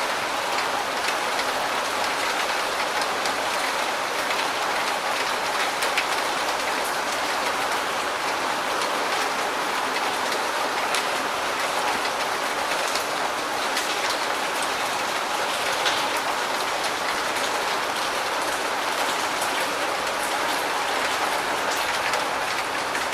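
Steady rain hitting a roof: an even hiss of rainfall with scattered sharper individual drop ticks.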